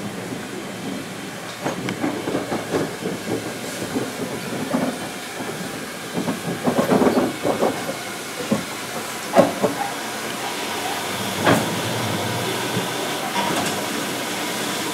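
Hunslet 0-6-0 saddle tank steam locomotive rolling slowly along the track, its wheels and motion clanking and knocking irregularly, with a steady hiss of steam coming in during the last few seconds.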